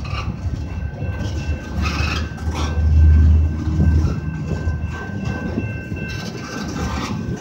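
Freight train's double-stack container well cars rolling past at a crossing: a steady low rumble of steel wheels on rail, swelling about three seconds in, with a few clanks around two seconds in. A thin, steady high-pitched tone runs throughout.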